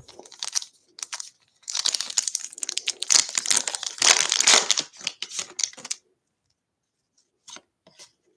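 Foil wrapper of a baseball-card pack being torn open and crinkled, in repeated bursts of rustling for about six seconds. Near the end come two faint taps as the stack of cards is handled.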